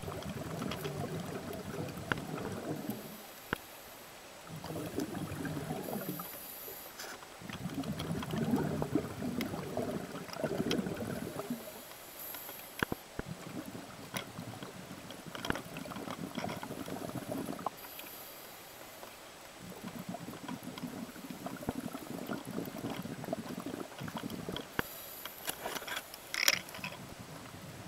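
Scuba regulator breathing heard underwater through a camera housing. A short hiss on each inhale is followed by a few seconds of rumbling exhaled bubbles, in a cycle that repeats every five to six seconds. Light clicks are scattered through it, with a sharper knock near the end.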